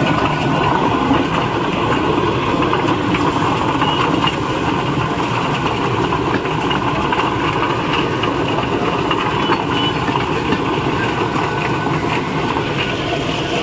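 Electric drum poultry plucker running: a steady mechanical noise from its motor and spinning rubber-fingered stainless-steel drum.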